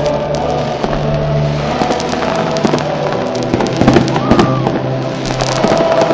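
Fireworks going off: a rapid, irregular series of sharp bangs and crackles.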